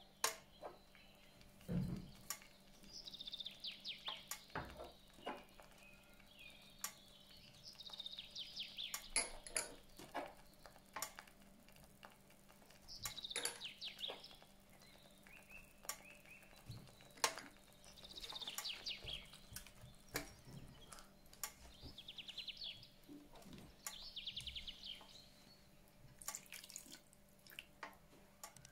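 Scattered clicks and knocks of kitchen utensils against dishes, with a small bird's short, rapid trills repeating about every two to three seconds behind them and a faint steady hum.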